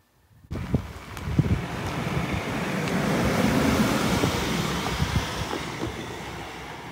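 A road vehicle driving over the level crossing, its engine and tyre noise building to a peak about three to four seconds in and then easing off, with wind on the microphone.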